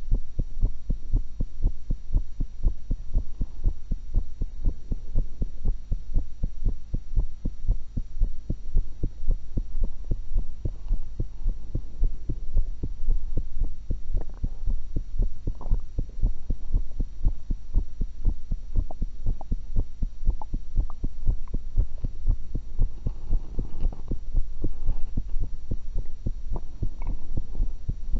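Human heartbeat picked up through a stethoscope on the chest: a steady, even run of thumps over a low hum.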